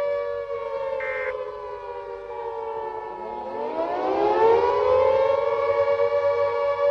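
Civil-defense air-raid siren wailing on a steady note that sags slightly in pitch, while a second siren tone winds up from low to full pitch about three to five seconds in. A short higher beep sounds about a second in.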